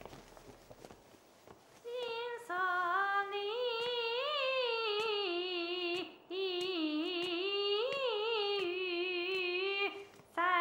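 A woman singing a wordless tune with a wavering, vibrato-laden voice. She starts about two seconds in and sings two phrases, with a short break near the middle.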